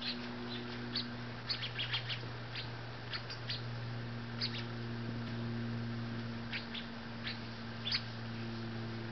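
Golden-crowned sparrows giving short, sharp chip calls, a dozen or so scattered irregularly, over a steady low hum.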